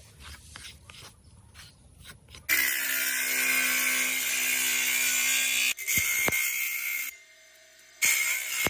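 Quiet handling clicks, then an electric power tool starts up and grinds against buffalo horn being shaped into a spoon. It runs steadily for about four and a half seconds, stops, and starts again near the end.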